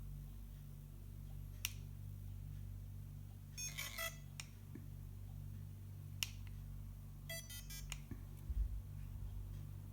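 FeiyuTech Vimble One gimbal stabilizer running with a low steady hum that pulses on and off about once a second. Two sharp clicks and two short bursts of rapid clicking break in. This is the unwanted extra noise the stabilizer makes while working.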